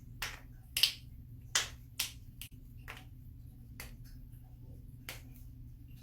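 Joints cracking: a series of about eight sharp pops at irregular intervals. The two loudest come in the first two seconds.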